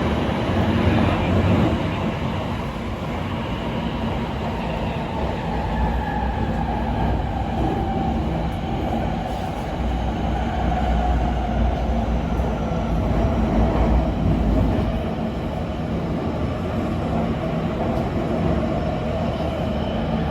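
Shenzhen Metro Line 3 train running between stations, heard from inside the carriage: a steady rumble of wheels and running gear with a faint whine that slowly drops in pitch in the second half.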